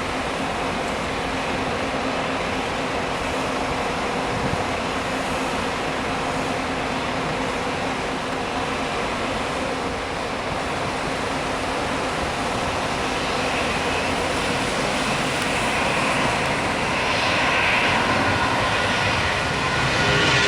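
Jet airliner engines running with a steady rushing noise that grows louder over the last few seconds, a whine coming in at the very end.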